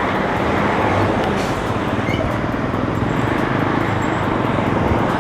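Steady wind rush and road noise on a helmet-mounted action camera's microphone while riding a bicycle along a road, with passing traffic.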